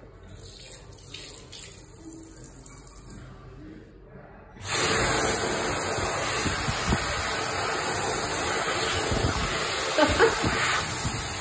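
Dyson Wash+Dry tap in use: water running quietly into the sink, then about four and a half seconds in a sudden, much louder steady rush with a thin high whine as the tap's hand-dryer arms start blowing.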